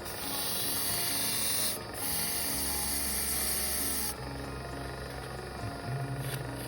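Two bursts of hissing spray, each about two seconds long, followed by a low steady hum.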